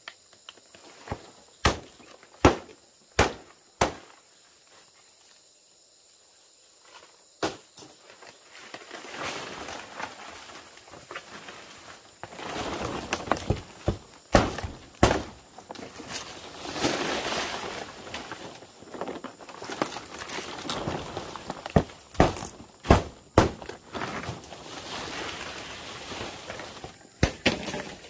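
Sharp chops of a machete into fan palm leaf stalks, five quick strikes in the first few seconds and more later on, with the rustle and scrape of the large palm fronds being handled and trimmed in between.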